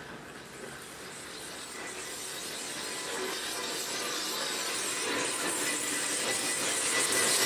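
Electronic stage soundscape of hissing, crackling noise that grows steadily louder.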